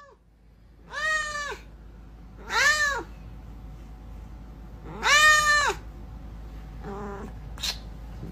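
A domestic cat meowing: three loud meows, each about half a second long and rising then falling in pitch, then a shorter, quieter one near the end.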